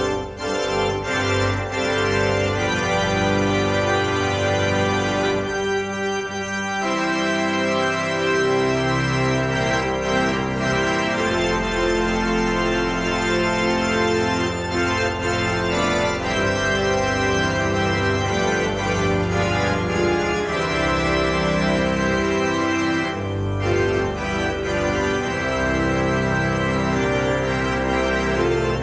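Church organ playing slow, sustained chords, thinning out briefly about six seconds in before the full sound returns.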